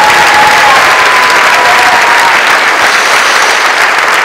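Large audience applauding steadily in a long ovation, the clapping easing slightly in the second half.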